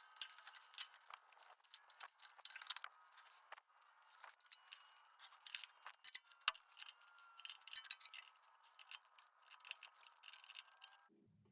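Faint, irregular metallic clicking and clinking of hand tools working on hydraulic hose fittings.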